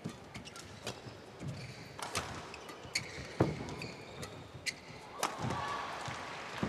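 Badminton rally: sharp cracks of rackets striking the shuttlecock roughly once a second, with shoes squeaking and thudding on the court.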